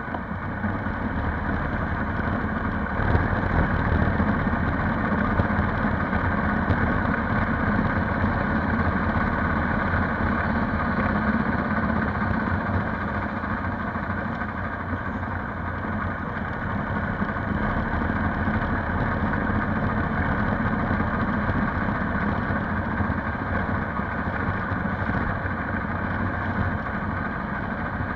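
Polaris Sportsman 570 ATV's single-cylinder engine running, getting louder over the first few seconds and then holding steady.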